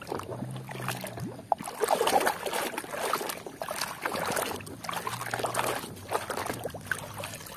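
A hand swishing and scrubbing a plastic toy cement mixer truck in a basin of muddy, sudsy water, with irregular splashing.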